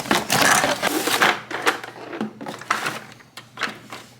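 A plastic toy bulldozer being handled: a burst of rustling and scraping, then a run of irregular clicks and rattles that grows fainter.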